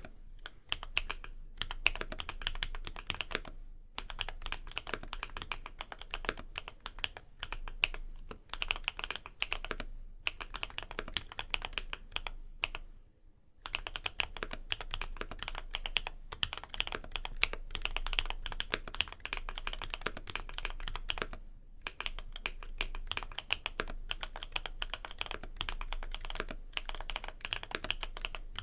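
Typing on a MonsGeek M1 aluminium mechanical keyboard fitted with Kikimeow Vitality tactile switches and PBT Cherry-profile keycaps. The keystrokes are fast and continuous, with a few brief pauses, the longest about 13 seconds in.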